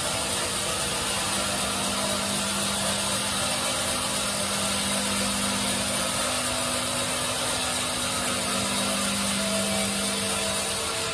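Band sawmill cutting lengthwise through a teak log: the bandsaw blade and its motor run with a steady sawing hiss over a low hum, and the hum drops away near the end.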